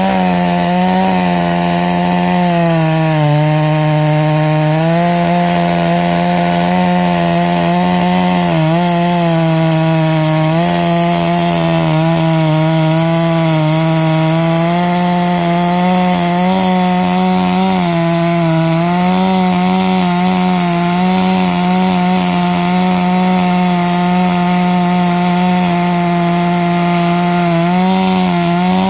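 Petrol two-stroke chainsaw running at full throttle, its tungsten-tipped chain cutting through a large log. The engine note holds steady and sags a few times as the chain bites harder in the cut, then recovers.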